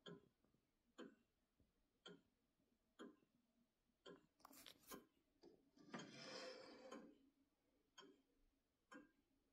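Antique grandfather clock ticking faintly and evenly, about one tick a second. Around the middle come a couple of sharper clicks and a rustle about a second long.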